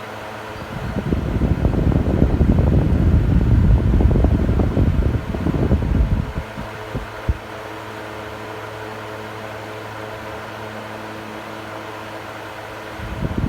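Electric fan running with a steady motor hum. About a second in, its airflow buffets the microphone with a loud, gusty rumble that dies away after about five seconds; a single click follows, and the rumble returns near the end.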